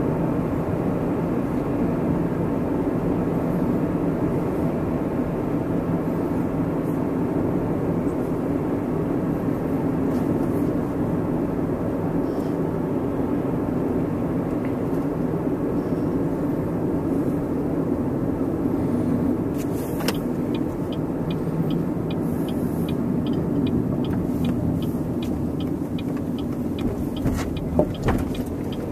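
Car driving, heard from inside the cabin: a steady engine and road-noise rumble. In the last several seconds a light ticking repeats about twice a second.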